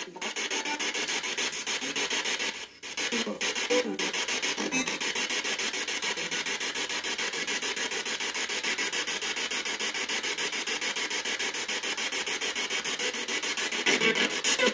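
Spirit box radio sweeping through stations, a steady static hiss chopped into rapid even pulses, played through a small external speaker. Brief fragments of voice break through a few seconds in.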